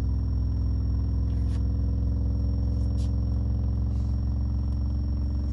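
Digital Designs 610E 10-inch subwoofer playing a steady low bass test tone in free air, with no enclosure, holding one pitch with its overtones above it.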